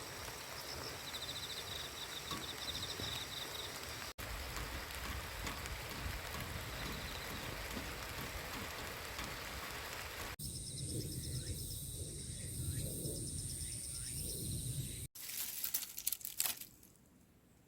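Outdoor summer ambience: a steady hiss with insects trilling high in rapid pulses, broken by abrupt cuts. A few sharp knocks come near the end.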